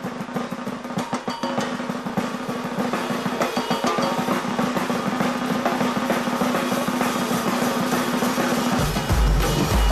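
Batucada percussion band playing: rapid snare-drum rolls and dense drum strokes over a steady ringing low tone. Near the end deep bass drums come in heavily and the band grows louder.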